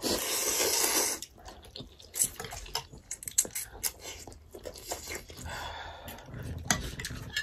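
Close-miked eating sounds: a loud slurp of thukpa noodles in the first second, then chewing and mouth clicks with small lip smacks as noodles and momos are eaten.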